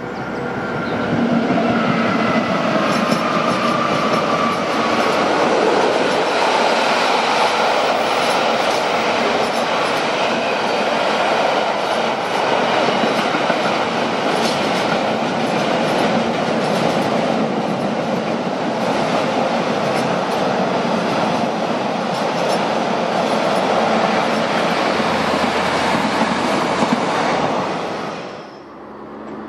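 Container freight train's wagons running past at line speed: a steady rumble and clatter of wheels on the rails, with a faint falling whine in the first few seconds. It fades near the end as the last wagon goes by.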